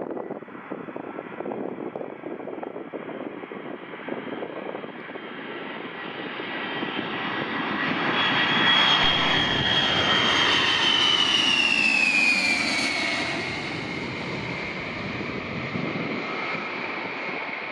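A Boeing E-3A AWACS's four TF33 turbofan engines on landing approach. The jet noise grows louder as the aircraft comes in low, is loudest about halfway through as it passes, then eases off as it heads toward the runway. A high engine whine drops in pitch as it passes.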